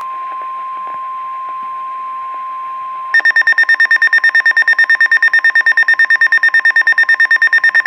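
A steady weather-radio warning tone (the 1050 Hz alert tone) over radio hiss; about three seconds in, a much louder rapid beeping alarm, around eight beeps a second, starts over it and keeps going. It is the alert signal that a weather warning bulletin is being broadcast.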